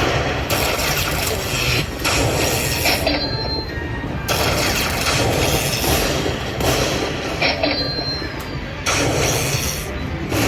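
Poker machine playing free spins: a rattling, whooshing reel-spin sound repeats in runs of about two seconds each, with short high chimes as the reels stop.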